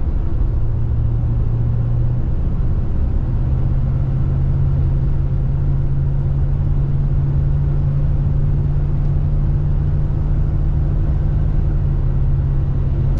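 A moving car's steady road and engine noise: a low drone that steps up slightly in pitch about two seconds in, then holds steady.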